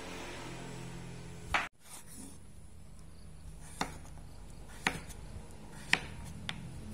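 Kitchen knife chopping pumpkin on a wooden cutting board: five sharp knocks of the blade striking the board, the first the loudest, the rest about one a second. A low steady hum runs underneath, and the sound cuts out for a moment just after the first knock.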